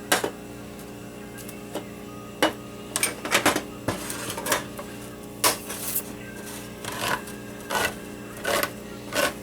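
Irregular clicks and short scrapes of metal kitchen utensils and cans being handled, some in quick clusters.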